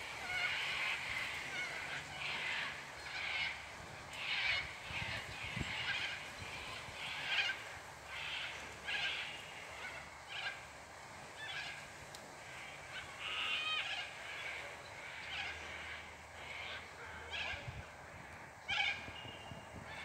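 Wild birds calling over and over: short, high calls, one or two a second and sometimes overlapping, over a faint steady wash of creek water.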